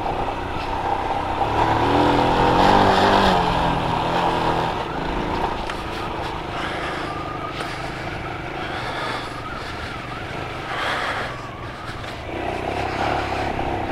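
Royal Enfield Himalayan's single-cylinder engine running under load on an off-road trail, the revs rising about two seconds in and then holding steadier.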